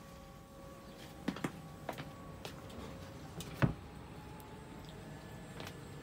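Faint steady room hum with a few scattered light clicks and knocks from the phone being handled and carried, the loudest knock about three and a half seconds in.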